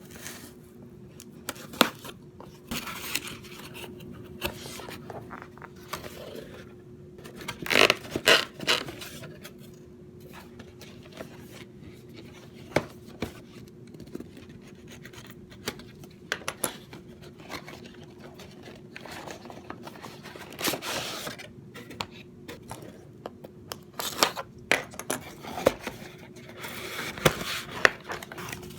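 A mailed package being opened and unpacked by hand: scraping, scratching and tearing of packaging with scattered clicks and knocks, loudest in a flurry about eight seconds in.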